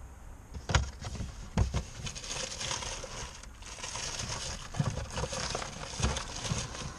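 Rustling and handling noise as things are moved about inside a car boot, with several dull knocks.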